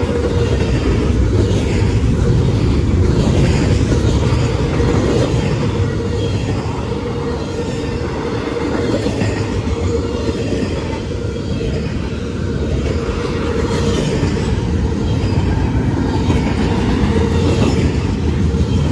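Double-stack container well cars of a CSX intermodal freight train rolling past: a loud, steady rumble of steel wheels on the rails.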